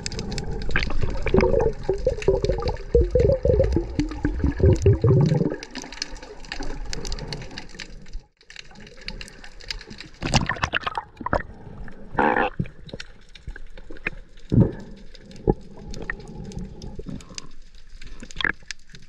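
Water bubbling and churning around the camera while snorkelling, heavy for the first five seconds or so, then lighter, with scattered crackles and a few short splashes.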